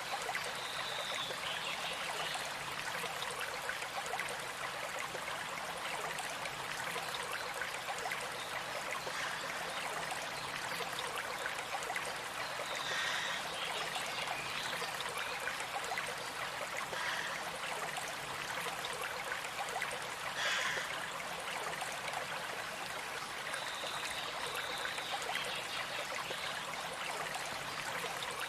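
Steady rush of running water from a stream or small cascade, with a few brief, high bird calls scattered through it.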